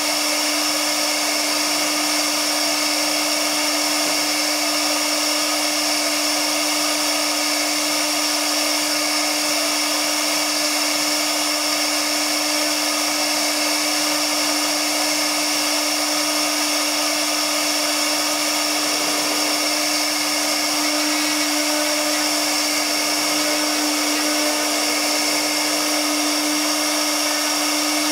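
CNC router spindle running at a steady speed while its bit carves relief into MDF board: a constant high-pitched whine over a steady low hum, with no change in pace.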